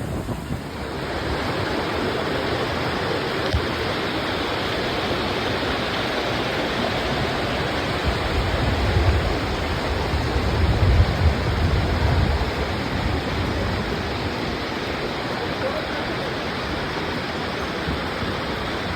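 Falling water of Dudhsagar Falls, a steady, even rush, with a low rumble swelling about nine to twelve seconds in.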